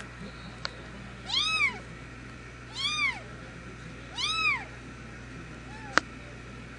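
A cat mewing three times, about a second and a half apart, each a short call that rises and falls in pitch, then a fainter one; a single sharp click near the end.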